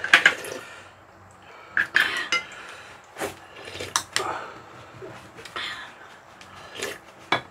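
Cutlery and bowls clinking during a meal: sharp knocks every second or so, each followed by a brief noisy scrape or rustle.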